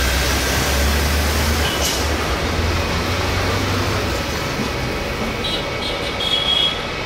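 Airbus A320 jet engines running at low power as the airliner taxis: a steady rush of engine noise with a deep rumble that eases about four seconds in. A few brief high-pitched chirps come near the end.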